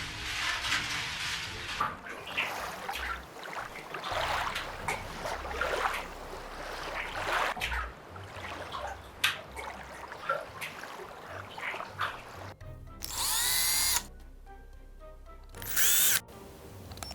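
Irregular crackling and rustling with scattered clicks, then a small electric motor whining up to speed in two short bursts near the end.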